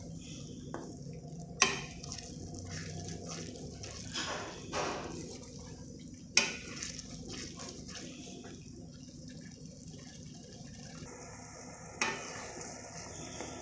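Wooden spatula stirring and scraping thick masala gravy with peas in an aluminium kadai, the gravy sizzling and bubbling in oil as the oil separates. Three sharp knocks of the spatula against the pan, about two, six and twelve seconds in.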